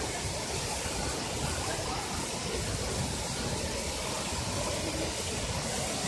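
Waterfall: water pouring over a wide stepped rock ledge into a pool, a steady rushing noise that holds evenly.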